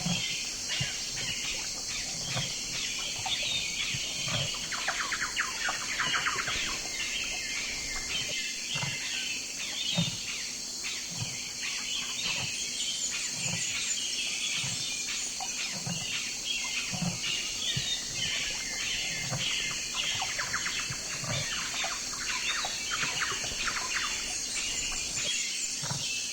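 A chorus of small birds chirping and twittering over a steady high hiss, with soft low pulses recurring about once a second.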